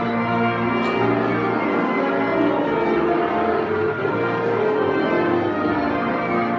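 Student concert band playing held, sustained chords that change every second or so over a low bass line.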